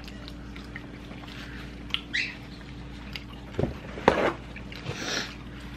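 Eating sounds from close to the microphone: chewing and mouth noises, with a few short louder sounds about two seconds in and again at three and a half and four seconds, the last the loudest.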